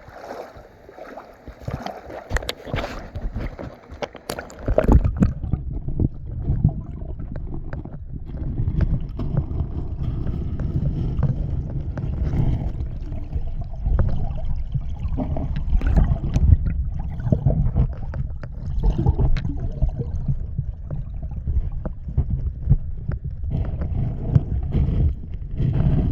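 Stream water flowing and gurgling, overlaid from about five seconds in by a heavy low rumble of wind on the microphone. A few knocks and rustles sound in the first seconds.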